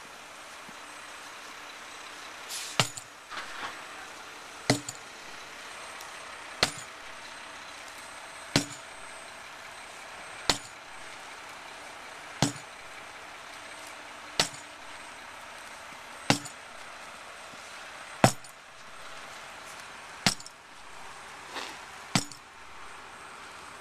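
A hammer swung in a steady rhythm, striking eleven heavy blows about two seconds apart, each a sharp impact with a brief ring.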